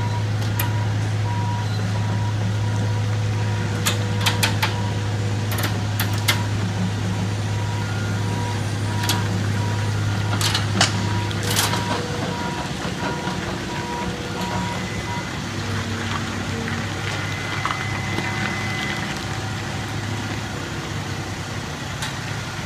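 Heavy diesel construction machinery running steadily, with a backup alarm beeping evenly through the first part and several sharp knocks in the middle. The low engine drone drops off about halfway through.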